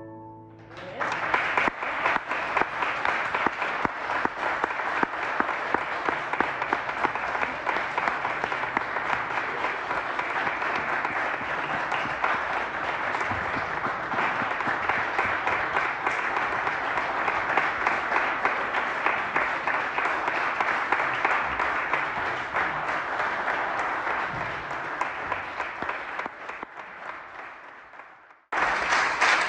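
Audience applauding. The last notes of music stop at the very start, clapping breaks out about a second in and carries on steadily, thins near the end, and is cut by a brief sudden gap before resuming.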